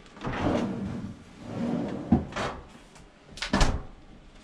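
A stainless-steel galley refrigerator drawer is pulled open on its runners and pushed shut, closing with a knock about two seconds in. A pair of sharp clicks or knocks follows at about three and a half seconds, the loudest moment.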